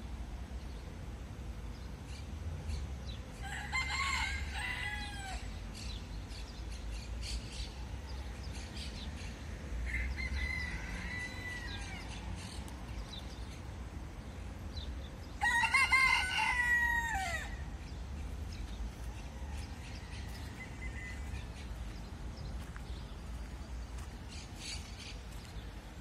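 Rooster crowing three times: the second crow is fainter, and the third, about two-thirds of the way in, is the loudest.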